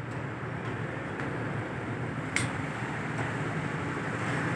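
Steady background hum and hiss with a single sharp click a little over two seconds in.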